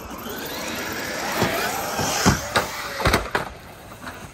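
Traxxas Maxx RC monster trucks running hard over a concrete skatepark: brushless electric motor whine rising and falling as they throttle up and jump, tyres rushing on the concrete, and several hard knocks between about one and a half and three and a half seconds in as they land and hit the ramps.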